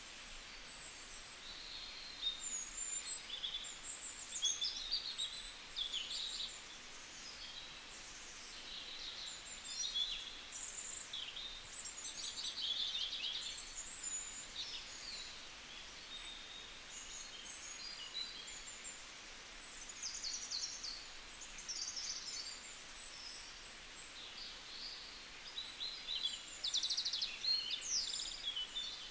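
Small birds chirping and twittering, many short high calls and quick trills overlapping irregularly, over a faint steady hiss of outdoor background noise.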